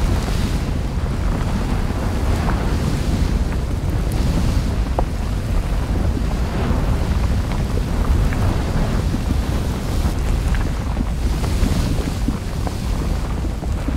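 Added sound-effect bed standing in for an erupting volcano, not the real sound of the lava field: a steady low rumble with a wind-like rushing and a few faint crackles.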